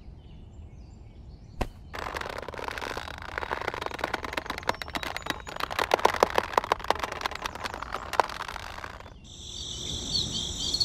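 Close rustling and crackling of coarse twine being pulled and knotted over small stuffed cloth sacks, a dense run of small crackles for several seconds after a single click. Near the end, crickets start chirring.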